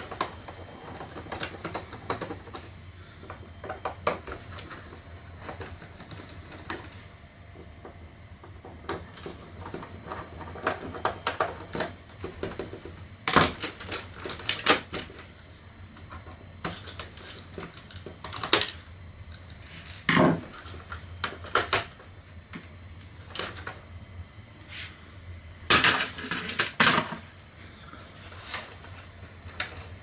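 Hard plastic parts of a Roomba robot vacuum being handled and unscrewed with a screwdriver: scattered clicks and knocks, with louder clatters about halfway through and again near the end.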